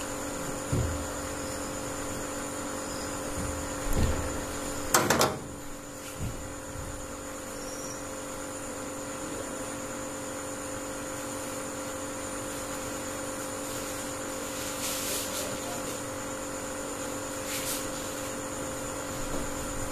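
A steady, even hum made of several fixed tones, like room machinery or an electrical hum. A few short knocks stand out about four and five seconds in.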